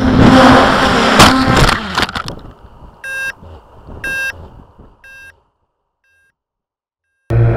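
Blade 350QX quadcopter's motors and propellers whirring loudly with wind rush, heard from its onboard camera, with a few sharp knocks as it tumbles into the ground out of control; the motor noise dies away about two seconds in. Then three short electronic beeps about a second apart, silence, and near the end the loud motor whir cuts back in.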